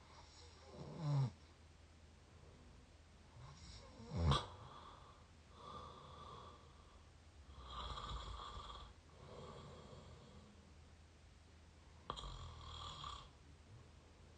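Mouth snoring recorded up close: about six snoring breaths, each around a second long and two to three seconds apart. The first two are the loudest and drop in pitch, and the later ones carry a steady held tone.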